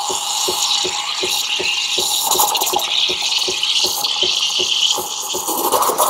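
Espresso machine steam wand hissing steadily with its tip under the surface of the milk in a stainless jug, frothing and heating the milk. Under the hiss is a regular pulsing, about four beats a second.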